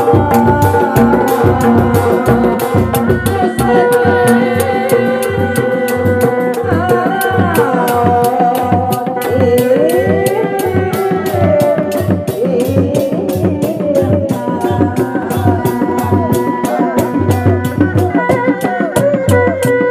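Sundanese reak ensemble music: dogdog drums beat a fast, steady rhythm under a wavering melody that slides up and down in pitch.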